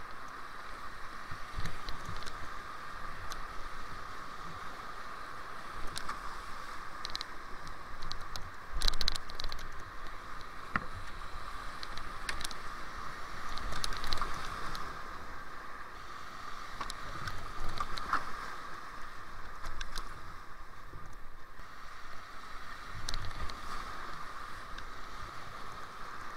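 Whitewater rapids rushing around a kayak, a steady hiss of moving water broken by frequent irregular splashes and slaps against the hull and paddle.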